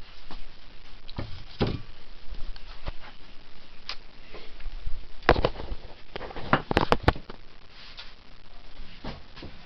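Scattered knocks, clicks and rubbing from handling things in a kitchen, with a cluster of sharp knocks about five to seven seconds in.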